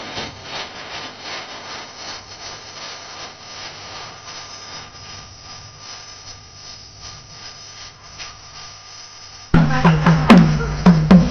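Low background hubbub of a dining hall with faint clatter. About nine and a half seconds in, it cuts suddenly to loud festive drumming: sharp, ringing strokes in a fast, steady beat.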